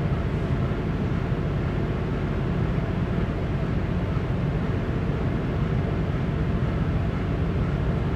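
Steady low rumble of a cargo ship's running machinery, an even drone with a faint hum and no change in level.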